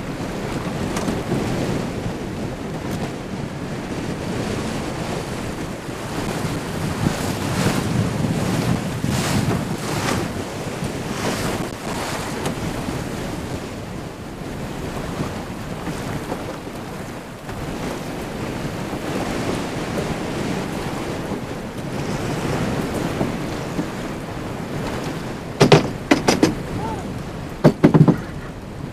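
Wind buffeting the microphone over choppy water slapping against a small open boat's hull, a steady rushing noise. Near the end come a few sharp, loud knocks.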